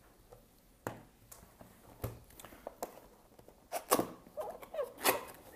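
Cardboard product box handled on a table: two light knocks as it is set down and turned over, then a spell of cardboard scraping and rustling as the box is opened, loudest about four and five seconds in.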